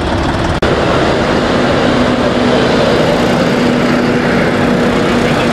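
Several tractor diesel engines running as the tractors move slowly in a column: a loud, steady rumble. A brief dropout comes about half a second in, and a steady hum comes in about two seconds in.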